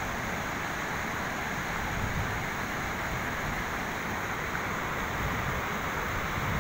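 Flowing river water: a steady, even rushing hiss.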